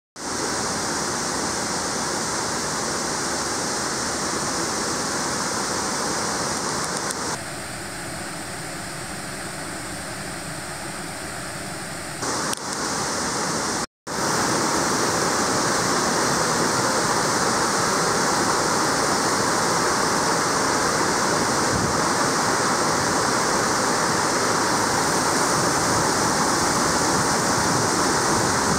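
Water rushing steadily down a waterfall and a rocky mountain stream. The sound is a loud, even rush that changes level abruptly at edits and cuts out briefly at about 14 seconds.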